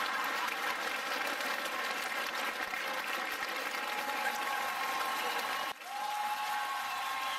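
Audience applauding steadily after a joke's punchline, with a brief sudden dip in the sound near the end before the clapping resumes.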